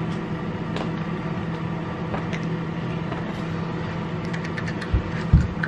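Steady hum of a running household appliance, holding one low tone. Near the end a few short low thumps and light clicks sound over it.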